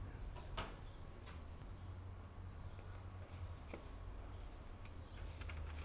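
Faint rustling and a few soft crinkles of wrapping paper being folded by hand around a lavash wrap, over a steady low hum.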